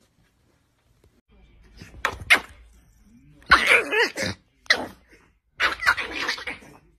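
Small dog, a Pomeranian, snarling and barking in five short, harsh outbursts starting about two seconds in.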